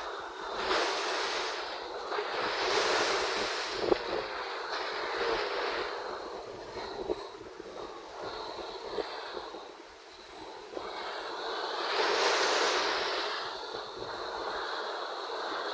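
Wind and sea waves at open water: a steady rushing noise that swells and eases, loudest twice, with a small knock about four seconds in.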